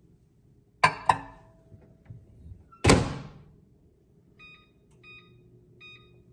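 A ceramic bowl set down on a microwave's glass turntable with two quick knocks, then the microwave door shut with a thunk about three seconds in. Three short keypad beeps follow as the butter-melt setting is selected.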